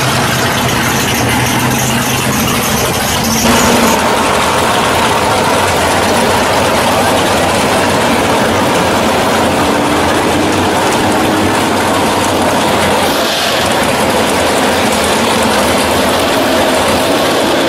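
Drag cars' engines idling, a steady loud mechanical running. About three and a half seconds in, the sound changes abruptly to a denser, rougher engine noise.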